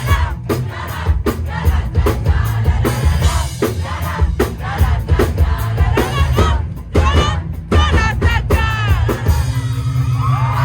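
Live band music played loud in a club: drum kit and heavy bass with singing and crowd voices. The drums stop about nine and a half seconds in, leaving a held note ringing.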